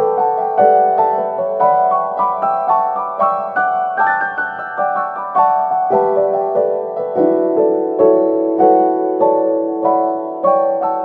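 Background piano music: a steady run of single notes moving up and down over held lower notes.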